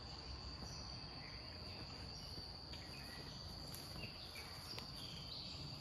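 Faint, steady high-pitched drone of insects in woodland, with a few short bird chirps scattered over it.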